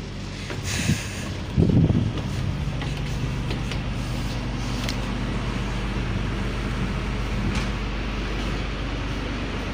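A houseboat's engine running with a steady low hum. A few thumps about a second and a half to two seconds in are the loudest moment.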